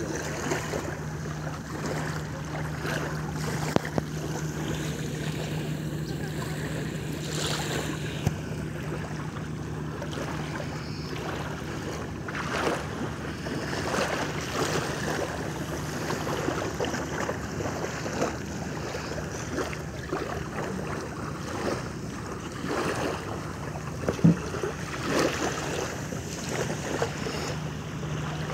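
Small waves lapping and splashing against an outrigger boat's hull and floats in shallow sea, with wind on the microphone. A steady low hum runs underneath, and occasional short knocks and splashes stand out, the sharpest a little after twenty seconds in.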